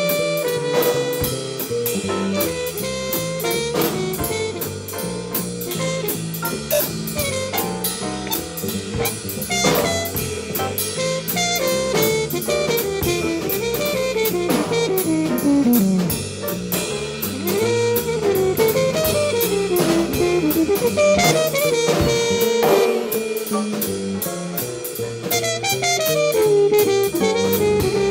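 Jazz drumming on a Rogers drum kit, played along with a small-group jazz recording in a steady swing rhythm.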